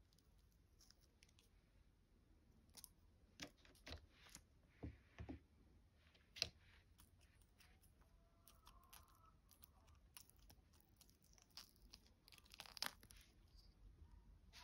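Soft silicone molds being flexed and peeled off freshly cast charm pieces: faint peeling and crackling with scattered small clicks and taps, one sharp click about six seconds in and a louder crackle near the end.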